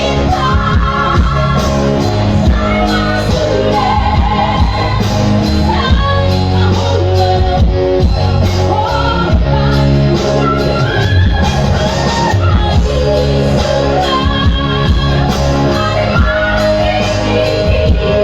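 A woman singing a Batak song over loud, steady band accompaniment.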